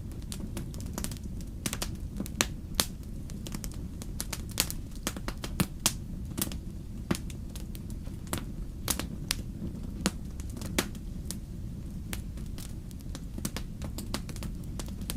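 Wood fire in a fireplace crackling, with frequent irregular sharp pops and snaps over a steady low sound of the burning.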